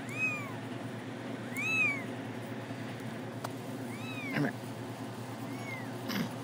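Week-old kittens mewing: four high, thin mews about a second and a half apart, each rising and then falling in pitch.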